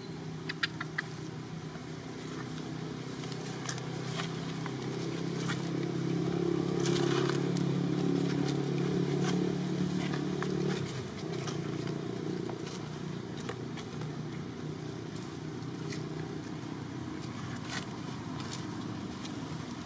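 An engine running steadily, growing louder toward the middle and dropping off sharply about eleven seconds in, with scattered light crackles and scrapes.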